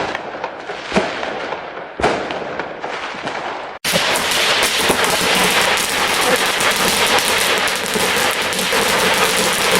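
Fireworks going off: two sharp bangs about a second apart with crackling between them, then, after a sudden break, a dense, continuous crackling barrage of many fireworks.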